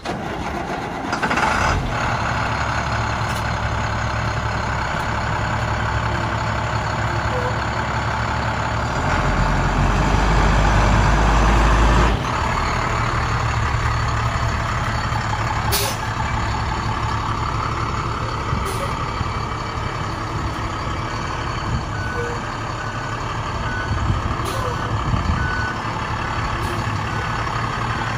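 Diesel engine of a 2007 International 4300 box truck running, swelling louder for a few seconds midway as the engine is revved, with a few short air hisses. Near the end a reversing beeper sounds in short repeated beeps.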